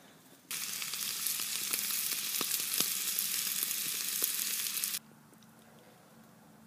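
Hamburger patty sizzling in a cast-iron skillet over an open wood fire: a steady hiss with a few pops, cutting in about half a second in and cutting off abruptly after about four and a half seconds.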